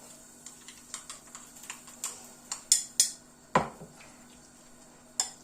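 Spoon stirring a mayonnaise spread in a bowl: scattered light clicks of the spoon against the bowl, with a few louder clinks in the middle, one ringing briefly.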